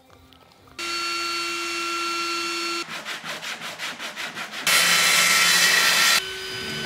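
Woodworking tool sounds in quick succession: a steady motor whine, then rhythmic rasping strokes at about five a second, then a circular saw cutting a sheet of OSB board for about a second and a half.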